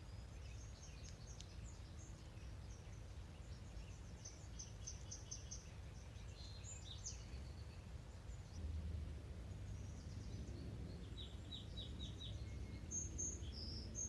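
Faint songbird song: bursts of quick high chirps and trilled phrases, with a short run of evenly repeated notes near the end, over a steady low background rumble.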